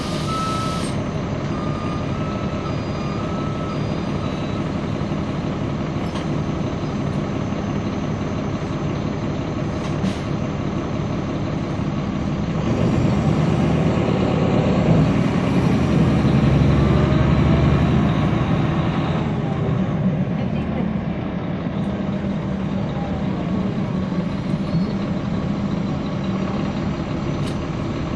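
Caterpillar C13 diesel engine of a NABI transit bus heard on board, running steadily, with a repeated beep for the first few seconds. About halfway through the engine revs up and climbs in pitch for several seconds as the bus pulls away, then drops back to its steady running.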